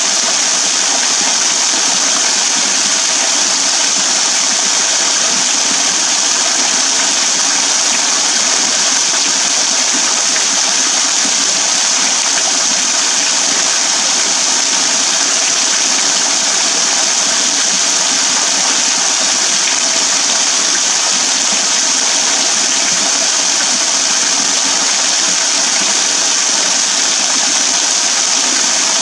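A thin waterfall falling from a rock overhang and splashing steadily into a shallow pool and onto wet ground, heard from just behind the falling water: an even, unbroken hiss of splashing.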